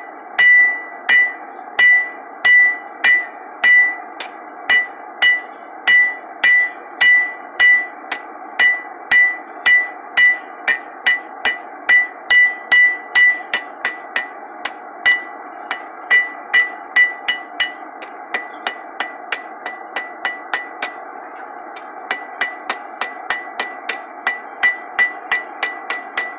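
Hand hammer striking a hot iron bar on a steel anvil, drawing out and tapering the top end of a wrought iron hook. Each blow rings with a clear, high anvil ring. The blows come about twice a second at first, then faster and lighter from about halfway, with a short pause about three quarters of the way through before they resume.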